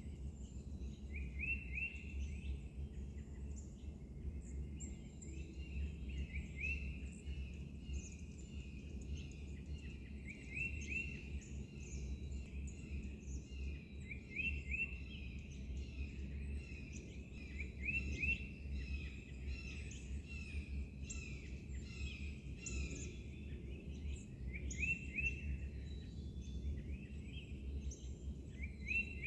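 Dawn chorus of several songbirds in woodland, with many overlapping chirps and one song phrase repeated every few seconds, over a steady low rumble.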